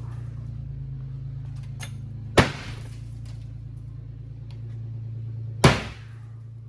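Sledgehammer striking a stripped BMW E36 body shell twice, about three seconds apart, each blow a sharp crash with breaking glass, over a steady low hum.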